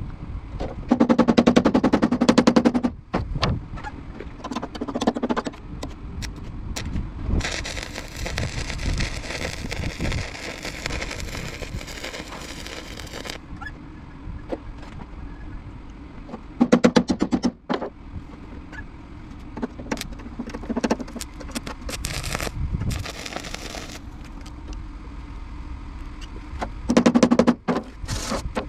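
Arc welding on a truck's steel fender: short bursts of a rapid, even crackling buzz, four of them, each a second or two long, with a longer, hissier stretch of noise in between.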